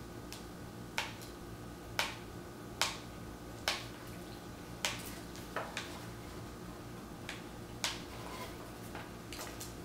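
Sharp, irregular clicks and taps from a Leica M rangefinder camera and lens being handled, about eight in all, over a faint steady hum.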